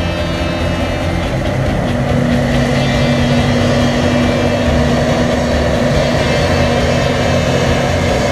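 Claas Jaguar forage harvester and tractors running steadily while chopping silage corn: a continuous engine drone, with a steady held tone joining about two seconds in.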